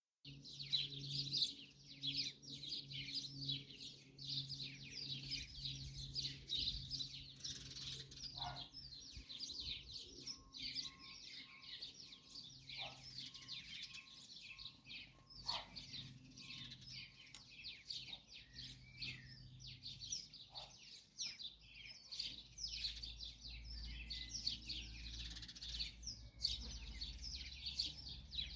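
Dense chorus of songbirds singing, rapid high chirps and trills without a break. A faint steady low hum lies under it for much of the time, giving way to a low rumble over the last few seconds.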